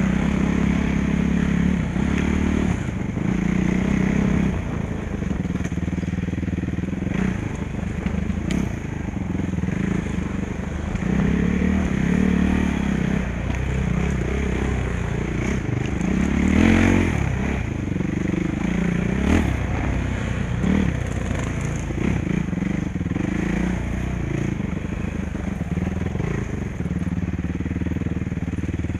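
Suzuki RMX450's single-cylinder four-stroke engine running up close under constantly changing throttle as the bike rides a dirt trail, rising and falling with each section. Rattle of the bike over the rough ground runs beneath, with two sharper knocks a couple of seconds apart past the middle.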